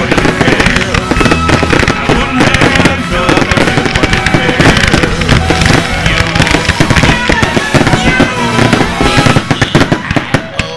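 Aerial fireworks going off in a dense, continuous barrage of bangs over loud music.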